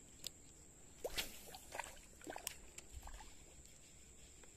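Scattered soft clicks and rustles of a spinning rod and reel being handled during a retrieve, bunched between about one and three seconds in, over a steady high insect drone.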